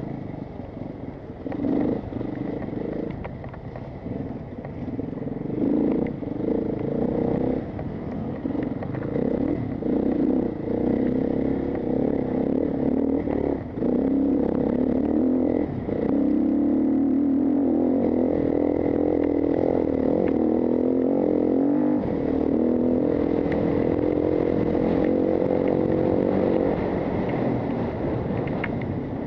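A bike descending a stony dirt and gravel race trail: wind on the microphone and the clatter of the bike over rocks and ruts, with a steady buzzing that sets in about halfway through on the fast, smooth stretch and holds until near the end.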